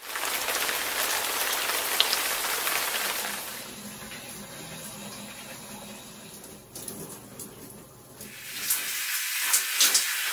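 Shower water spraying onto wet hair, a steady hiss that drops in level about three and a half seconds in and turns patchy and splashy near the end.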